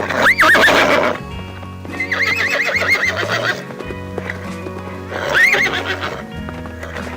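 Three high, quavering animal calls over steady background music: a short one near the start, a longer trilling one in the middle, and a short one near the end.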